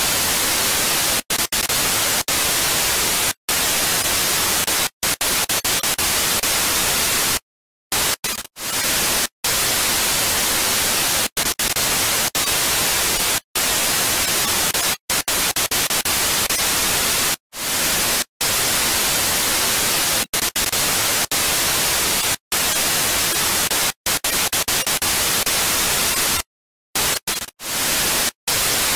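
Loud, steady hiss of television static (white noise), stronger in the highs, broken by frequent brief cuts to silence, with two longer gaps about a quarter of the way in and near the end.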